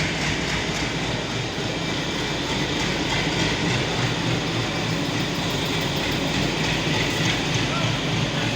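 A goods train hauled by a diesel locomotive running past, a continuous steady rumble of the train on the track with no breaks.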